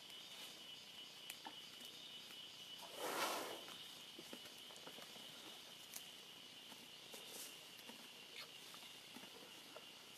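Faint steady high drone of forest insects, with scattered soft snaps and rustles in the leaf litter and one brief rushing sound about three seconds in.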